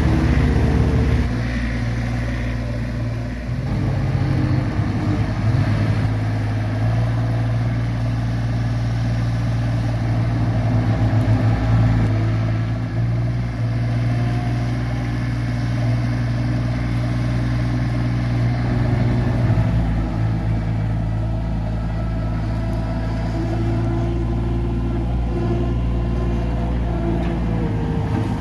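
Skid steer loader's engine running throughout, its speed dropping and rising a few times as the machine works.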